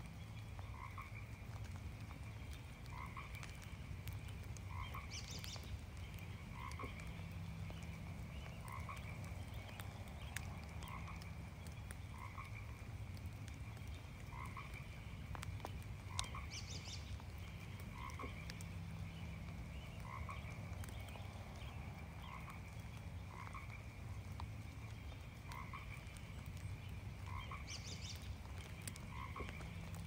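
A chorus of frogs croaking: one frog calling about once a second over a steady run of calls from others, with light rain falling.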